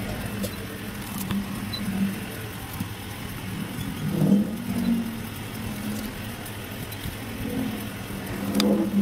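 Steady background noise of motor vehicles running, with a few light clicks as the circuit boards are handled.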